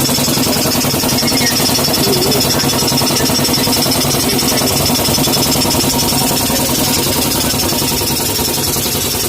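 Air compressor driven by a 2 HP electric motor, running steadily with a fast, even chugging pulse.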